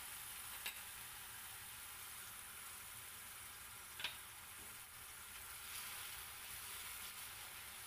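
White shimeji mushrooms and garlic sizzling in oil in a frying pan, a steady light hiss, with two brief clicks, one under a second in and one about four seconds in. A wooden spatula stirs through them near the end.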